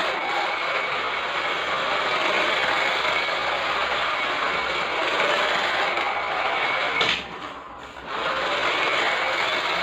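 Radio-controlled Scania 770S truck model running: a steady high electric-motor whine over a rushing mechanical noise. It cuts out for about a second some seven seconds in, then picks up again.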